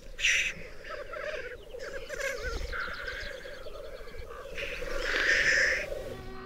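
Wild animal calls: a low, rapid rattle runs under a series of higher chirping calls, the loudest about five seconds in.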